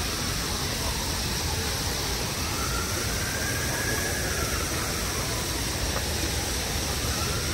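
Steady city street ambience: a constant rushing hiss with a low rumble underneath, and faint tones that rise and fall.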